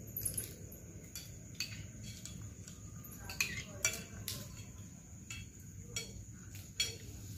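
Spoons clinking and scraping on plates as several people eat, a scatter of light, irregular clinks over a low steady background hum.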